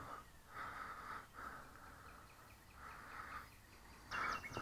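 Slow, close breathing picked up by a head-mounted microphone, in soft hissy breaths every second or so. About four seconds in, a bird starts chirping in a quick repeated series.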